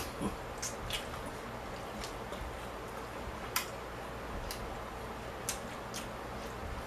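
Eating noises: a handful of short, sharp smacks and clicks from chewing with the mouth closed, spaced irregularly, over a steady low background hum.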